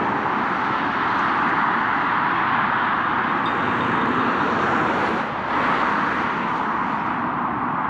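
Road traffic passing close by: a steady rush of tyre and engine noise that dips briefly about five seconds in.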